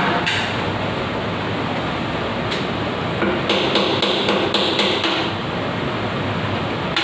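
Hammer striking a chisel to pick out the broken threaded stub of a two-way valve left inside a wall pipe fitting: sharp metallic taps, one early and then a quicker run of several in the middle, over a steady background hiss.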